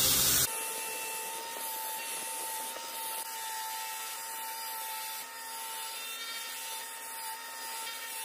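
Belt grinder running with a small brass block pressed against the abrasive belt: a steady grinding hiss over a constant whine. A louder, harsher stretch of grinding cuts off suddenly about half a second in.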